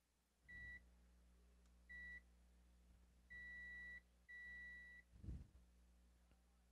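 Multimeter continuity buzzer beeping four times at one high pitch as the probes touch a video card's pins and traces: two short beeps, then two longer ones. Each beep shows that the line tested is connected. A soft knock about five seconds in.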